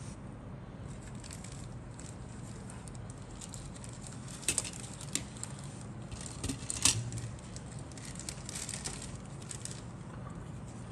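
Hard plastic model-kit parts being handled and shifted on a cutting mat: scattered light clicks and rattles, with a few sharper clicks about four and a half and seven seconds in.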